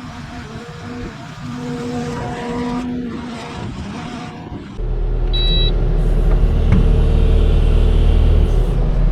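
A motor running steadily, growing suddenly much louder and heavier about five seconds in, with a short high beep just after.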